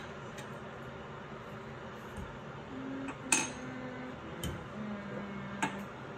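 Metal gas-cooktop control knobs being pulled off their stems and set down, making three light clinks about a second apart, the first and loudest about three seconds in.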